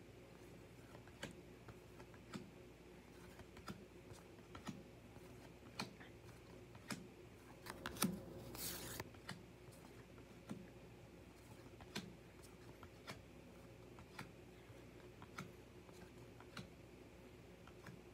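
Baseball trading cards being flipped through one at a time, each card landing on the pile with a faint click, about one a second. A brief rustle of the cards comes about halfway through.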